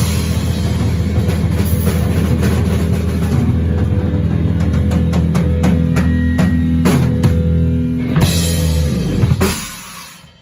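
Instrumental heavy metal: distorted guitar and bass holding a chord under a run of drum hits, with crash cymbals about eight and nine and a half seconds in. The closing chord then rings out and fades at the song's end.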